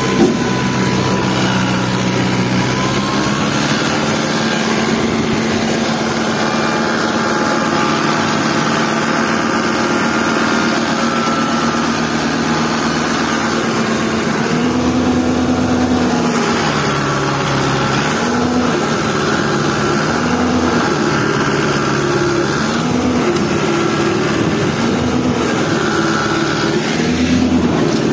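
Fiat 640 tractor's four-cylinder diesel engine running, heard from the driver's seat. From about halfway through, its speed rises and falls over and over.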